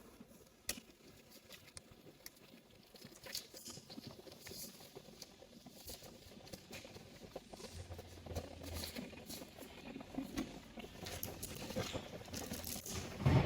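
Scattered light clicks and rustling of medical equipment being handled while a nebulizer is set up. A louder, low noise sets in suddenly at the very end.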